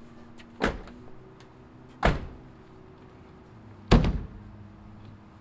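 Three sharp slams about a second and a half apart, the last the loudest, over a low steady hum.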